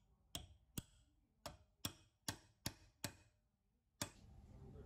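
Screwdriver working a screw in the gummed, rusty bevel gear of an old hand-cranked drill, giving a run of about eight sharp metal clicks roughly half a second apart. After the last click, about four seconds in, a steady hiss comes up.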